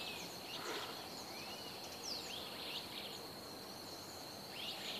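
Small birds chirping in short, repeated calls over a steady high-pitched insect drone.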